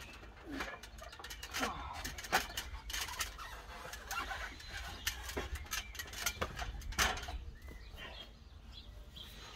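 Irregular knocks and clatter on an aluminium scaffold tower as someone climbs down it, with birds chirping.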